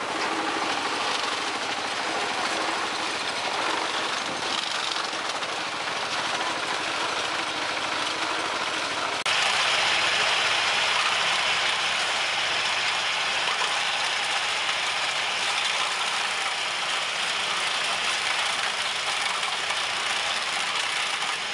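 Engine and cutting gear of a small walking-tractor sugarcane harvester running steadily, with a clattering mechanical rattle. About nine seconds in the sound switches suddenly to a tractor running with a front-mounted sugarcane cutter at work, a slightly louder, hissier machine noise.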